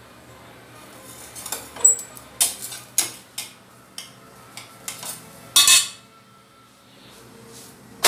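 Flat steel spatula clinking and scraping against an iron tava as a jowar bhakri is loosened and flipped: a string of sharp clicks and knocks over a few seconds, the loudest a longer scrape about five and a half seconds in, with one more sharp clink at the end.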